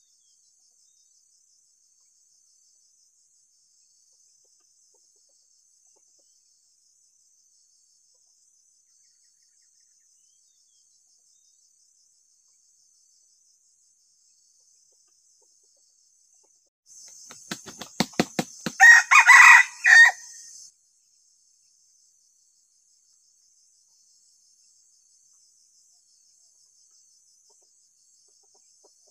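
Faint steady high insect trill, then about 17 s in a quick run of sharp claps followed by one short crow from a young decoy rooster (ayam pikat), the crow used to provoke wild red junglefowl.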